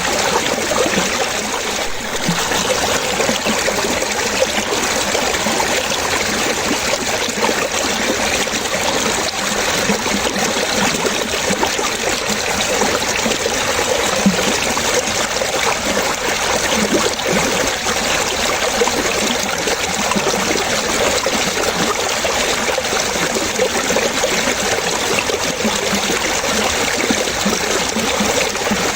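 Water trickling and splashing steadily, a continuous running-water sound with no breaks.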